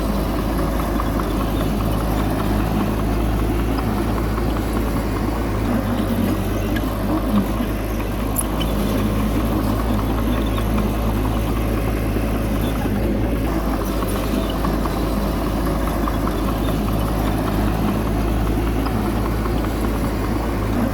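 A bulldozer's diesel engine running steadily under work, with a constant low drone and a noisy mechanical clatter over it.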